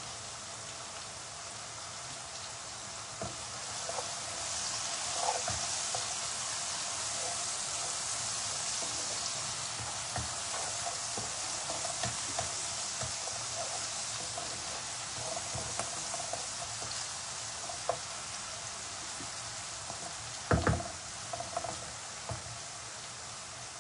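Sliced onion and green chillies frying in oil in a pan: a steady sizzle that swells a few seconds in, with scattered knocks of a spatula against the pan, the loudest about twenty seconds in.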